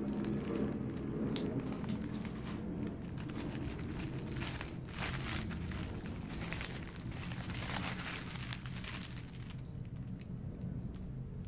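Clear plastic packaging bag crinkling and rustling as it is handled and pulled open, in a dense run of crackles that is thickest about halfway through and thins out near the end.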